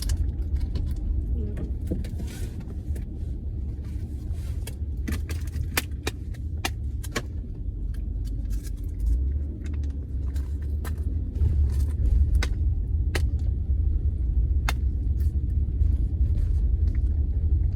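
Car road noise: a steady low rumble inside a moving car's cabin, with scattered light clicks throughout.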